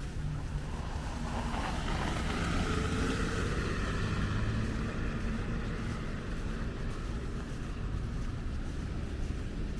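A vehicle driving past on a snowy, slushy city street. Tyre hiss and engine noise swell from about a second in, are loudest around the middle, then ease off over a steady low rumble of traffic.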